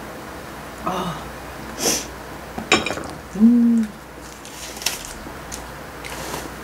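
A woman's short wordless vocal sounds: a brief rising 'uh' about a second in, then a held hum just past the middle, the loudest sound. Between them come breathy puffs and a few light clicks and rustles as a disposable plastic glove is pulled off.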